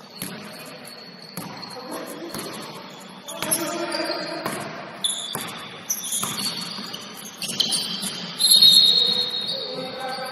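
Basketball bouncing on a gym court during a game: several irregular thuds, with players' voices calling out.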